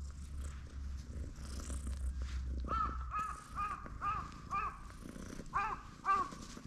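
A domestic cat purring steadily as it is stroked. About halfway through, a bird calls in a run of short, pitched calls, about two a second, and the last two calls are the loudest.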